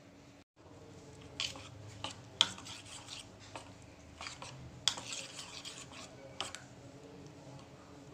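Metal spoon stirring thick gram-flour batter with chopped vegetables in a steel pan, clinking and scraping against the pan's side and bottom a dozen or so times.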